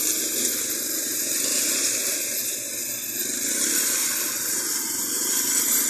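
T12 twin-engine tracked brush cutter running while it cuts through ferns, a steady hissing engine-and-blade noise.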